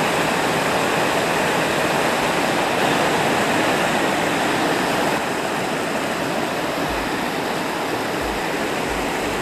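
Creek water rushing over rocks at the top of a waterfall: a steady, loud rush that drops a little about five seconds in.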